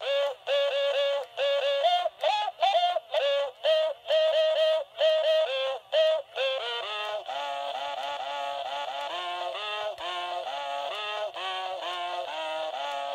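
Kewpie honey bee sound-response doll playing an electronic tune through its small speaker. For about the first six seconds the notes are short and separate; after that the tune runs on continuously, with a lower second line under the melody.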